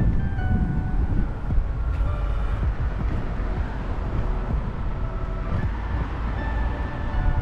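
Strong wind buffeting the microphone: a heavy, steady rumble. Faint musical notes sit over it.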